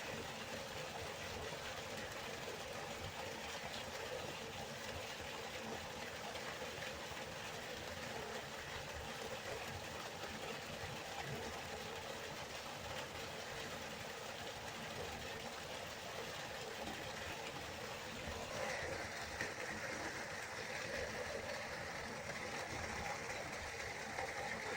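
River water flowing steadily, a continuous rushing. About 18 seconds in, the hiss becomes brighter and a little louder.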